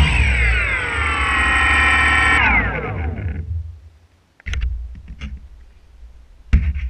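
DJI Phantom quadcopter's propeller motors spinning down after landing, their whine falling in pitch and dying away over about three to four seconds. Then a few light clicks and knocks as the drone is handled, with a louder knock near the end.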